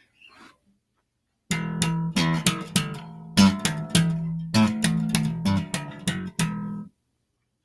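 Music: plucked guitar notes with a low bass line, played as a short run of separate, decaying notes. It starts about a second and a half in and stops just before the end.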